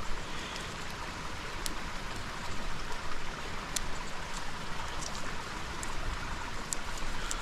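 Woodland stream running steadily, with a few sharp clicks.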